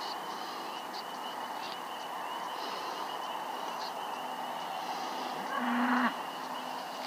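Night-time field ambience: a steady high-pitched insect trill with a few faint chirps, and one short, low call about five and a half seconds in.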